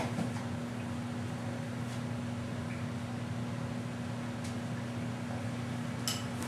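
Steady low hum under even background noise, with a few faint clicks and one sharper click near the end.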